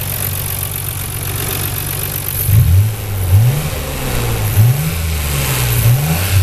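Nissan R32 GT-R's RB26DETT twin-turbo straight-six idling, then blipped by hand at the throttle four times from about two and a half seconds in, each blip a quick rise in revs that falls straight back to idle. It is a free-revving response that the seller calls "just so good".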